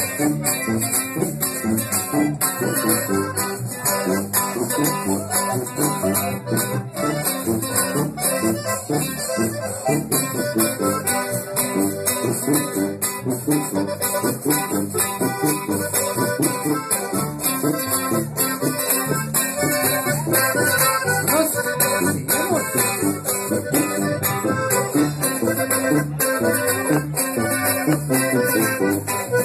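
Live norteño band playing a cumbia: accordion over a steady dance beat with a shaken rattle-like percussion.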